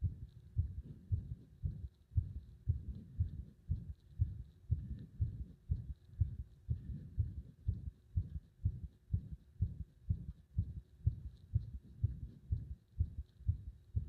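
Human heart beating, heard close up: a steady, regular run of low thumps, about two a second.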